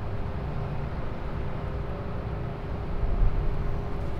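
Steady low rumbling outdoor background noise, with no distinct event standing out.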